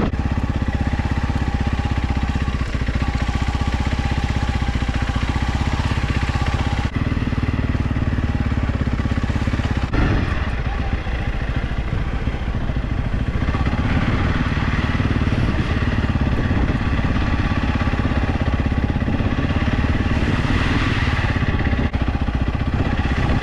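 Motorcycle engine running at low, steady throttle while the bike is ridden slowly over rough, slippery ground, with a short change in engine note about seven and ten seconds in.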